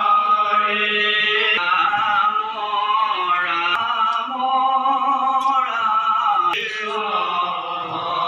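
Devotional nam chanted by a group of men, a continuous sung chant whose pitch holds and glides up and down.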